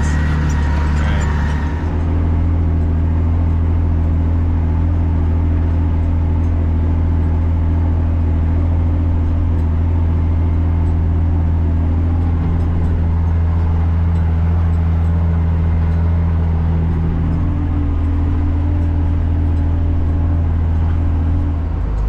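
Tractor engine running steadily, heard from inside the cab, with a low even hum; the engine note shifts a little about two seconds in.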